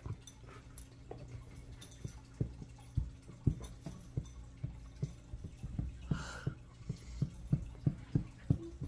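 Basset hound mix puppy moving about on a sofa blanket: soft, irregular thumps and taps, a couple a second, with one short breathy huff about six seconds in.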